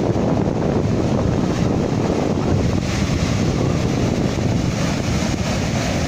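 Rough sea: Atlantic waves breaking and washing white over shore rocks, with strong wind buffeting the microphone. The noise is steady throughout.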